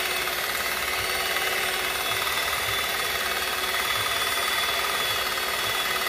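Electric hand mixer running steadily at a constant speed, its motor giving a steady whine as the beaters whip a cream mixture in a glass bowl.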